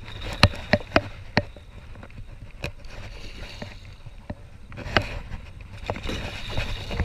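Hooked giant snakehead thrashing at the surface beside an aluminium boat, with bursts of splashing and several sharp knocks, the loudest a little after the start and about five seconds in.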